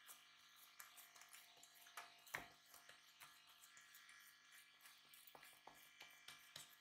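Near silence, with faint scattered clicks and soft taps of hands pressing pizza dough flat on a metal pizza pan; one sharper click about two and a half seconds in.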